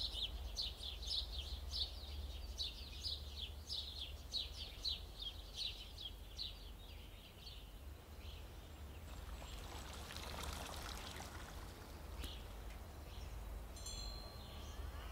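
A bird calling a quick falling chirp, about three a second, for the first half, over a steady low rumble. Later, around ten seconds in, a soft whoosh of noise.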